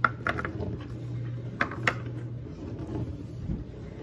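A few light clicks and knocks from a plastic vegetable oil bottle and measuring cup being handled at a kitchen counter, two of them close together near the middle, over a steady low hum.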